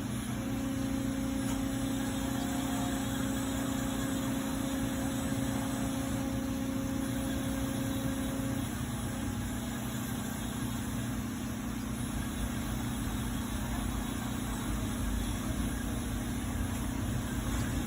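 CNC vertical mill running: a steady machine hum with a steady whine over it that stops about halfway through, leaving the hum.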